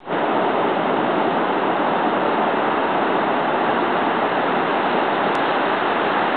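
Steady, unbroken rush of ocean surf on a beach.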